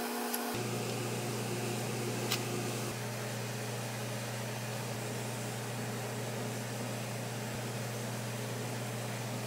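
Steady machine hum with an even hiss from kitchen appliances, with one faint click about two seconds in.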